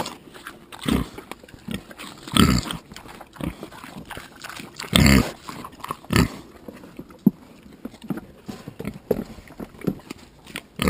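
Mangalica pigs grunting at the pen rail while chewing watermelon rind: irregular short grunts, the loudest about two and a half and five seconds in.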